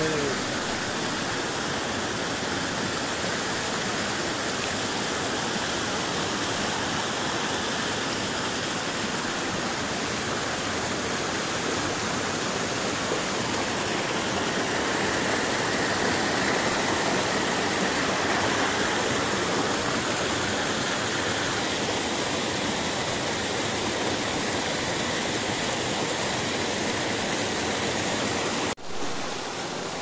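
Rushing water of a rocky mountain stream: a small waterfall and cascades pouring over stones in a steady rush. It grows a little louder and brighter in the middle and breaks off briefly near the end.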